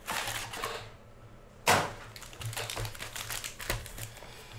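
Cardboard trading-card hobby box handled and its foil-wrapped packs taken out and stacked on a table: a short rustling scrape, a sharp knock just under two seconds in, then a run of light taps and crinkles.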